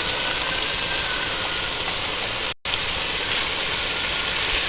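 A pot of green gram leaf saag sizzling and simmering steadily just after flour-and-water slurry is added. The sound cuts out for an instant about halfway through.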